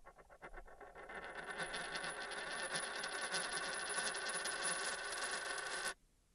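A coin spinning on a hard surface, its rattle getting faster and louder, then cutting off abruptly near the end.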